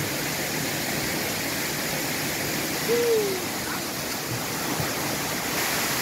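Steady rushing of a waterfall. About halfway through, a single short call falls in pitch.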